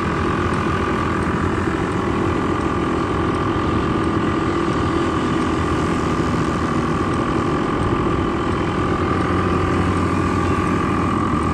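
Quad bike (ATV) engine running steadily at an even speed, with no revving.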